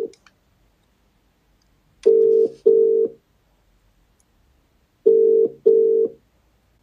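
Telephone ringing tone heard down the line while an outgoing call waits to be answered: two double rings, 'brr-brr … brr-brr', about three seconds apart. This is the British-style double-ring cadence.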